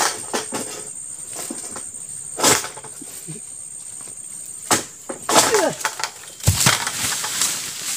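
Unsharpened Palmking egrek, an oil-palm sickle on a long pole, hacking at a fruit bunch's stalk in a series of sharp knocks. About six and a half seconds in, a heavy thump as the cut fresh fruit bunch drops to the ground, then a brief rustle of fronds.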